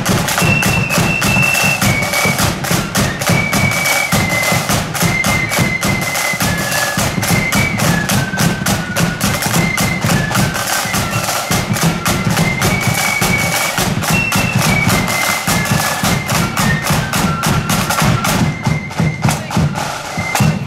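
Marching flute band playing a tune: high flutes carry a single melody line over rapid snare drumming and a bass drum.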